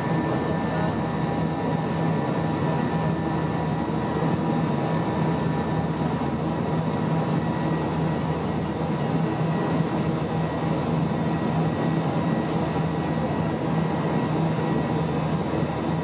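Steady in-flight cabin noise of an Airbus A320-232 with IAE V2500 engines: engine drone and airflow rush, with a few constant tones held throughout.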